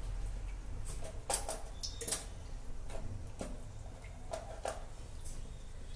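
A few scattered light clicks and taps, as of utensils being handled on a kitchen counter, over a faint low hum.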